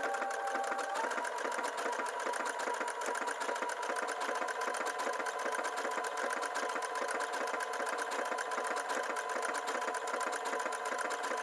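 Brother Innov-is VQ4 computerized sewing machine running steadily while sewing an overcast stitch along a fabric edge. It makes a rapid, even clatter of stitches over a motor whine that steps up slightly in pitch about a second in.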